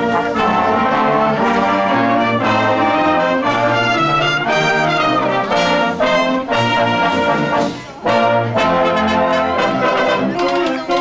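Marching band playing a march, with trombones and trumpets to the fore and sustained low brass notes, and a short break about eight seconds in.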